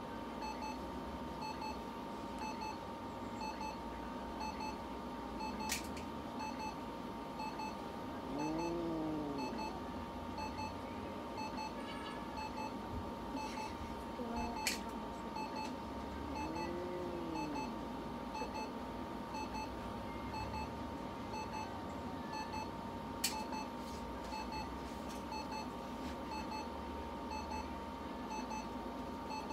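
Light-therapy unit running during treatment, giving short electronic beeps at an even pace of about one a second over a steady electronic tone, with a sharp click roughly every nine seconds. Two short, low sounds rise and fall in pitch, about a third of the way in and again past halfway.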